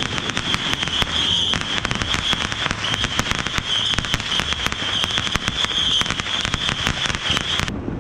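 Fireworks crackling and popping in a rapid, dense string of sharp reports. Most of the crackle cuts off suddenly shortly before the end.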